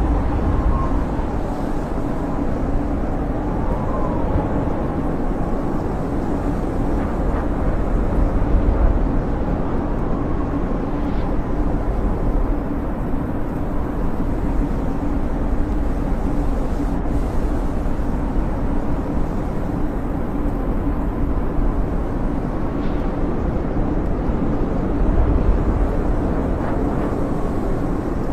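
Snowstorm wind blowing steadily with a deep rumble and a faint wavering whistle, swelling a little twice.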